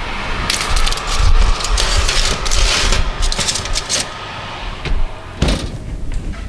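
Foil-lined metal baking tray scraping and rattling as it slides onto an oven rack, then the oven door shuts with a single knock near the end.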